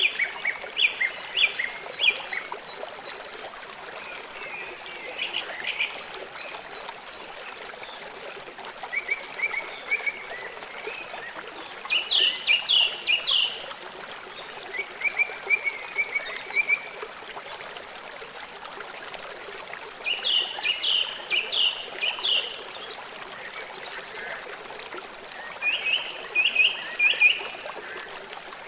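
Songbirds singing short phrases of quick, repeated chirping notes every few seconds over the steady rush of a flowing stream.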